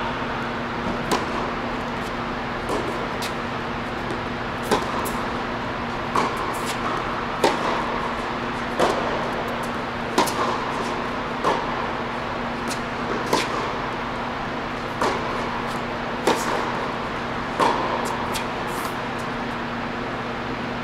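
Tennis rally on an indoor hard court: sharp pops of the ball off the rackets and its bounces on the court, about one every second and a half. A steady low hum runs underneath.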